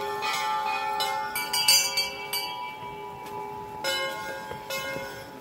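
Metal temple bells rung by hand, struck several times in quick succession and again twice near the end, each stroke ringing on with long overlapping tones.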